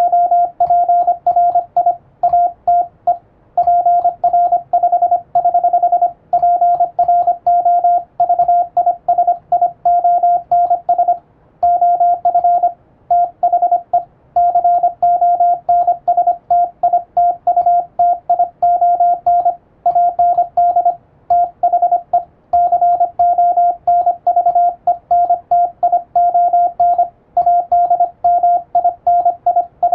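Morse code keyed on an electronic keyer: a steady sidetone beep of about 700 Hz switched on and off in quick, even dots and dashes, with short pauses between words. It is sending a radiotelegram in Latin-alphabet (English) Morse.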